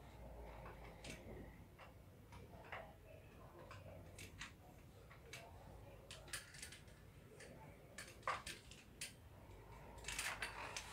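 Faint, scattered clicks and taps from a ring light and its tripod stand being handled and fitted together, with a louder click a little past eight seconds in and a short cluster near the end.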